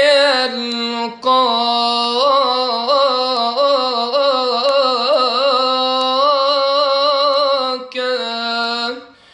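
A man singing an unaccompanied Arabic devotional chant (inshad), drawing each syllable out into long melismatic notes with wavering ornaments. He breaks briefly for breath about a second in and again near the end.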